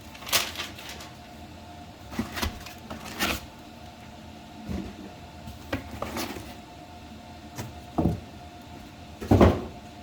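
Intermittent handling noises of unpacking: about seven short knocks and rustles of packaging and parts being moved, the loudest near the end, over a faint steady hum.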